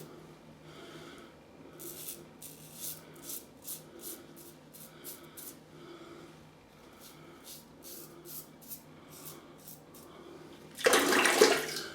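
Gillette Tech safety razor scraping through lathered stubble in a steady series of short, quiet strokes, about two a second. Near the end, running tap water gushes loudly for about a second as the razor is rinsed.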